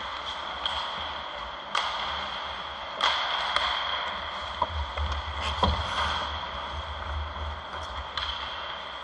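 Ice hockey play: skate blades scraping the ice, with sharp clacks of sticks and puck every second or so, the loudest about three seconds in and again a little past five seconds. A steady high-pitched hum runs underneath.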